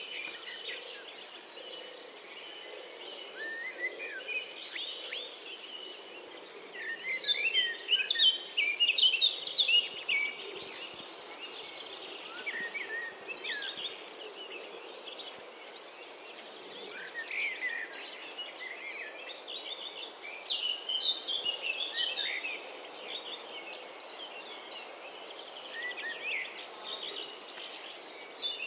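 European robin singing its winter song: runs of thin, high, quick warbled phrases, loudest about eight to ten seconds in. A steady faint high-pitched whine and a low background rumble run underneath.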